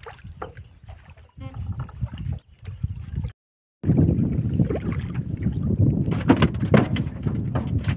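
Wind rumbling on the microphone with water lapping against a wooden boat. After a sudden cut to silence about halfway through, a hooked fish splashes and thrashes at the surface beside the hull as it is hauled in on a hand line, with a run of sharp slaps and splashes.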